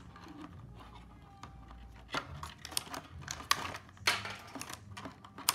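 Large scissors snipping through cardboard and plastic toy packaging: a run of sharp snips and clicks that starts about two seconds in, with the loudest snips near the end.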